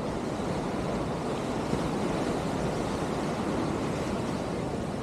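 Ocean surf on a sandy beach: a steady rushing noise.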